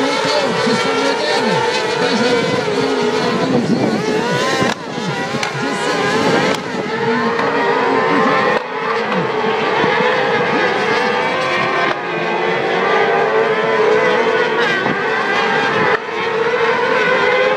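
A pack of cross cars racing together, their engines running loud and overlapping, the pitch rising and falling as they rev through corners and shift.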